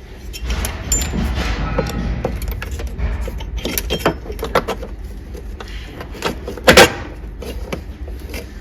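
Cover plates being handled and fitted back into the lock housing: a run of clinks, clicks and knocks, with the loudest, a sharp double knock, about three-quarters of the way through.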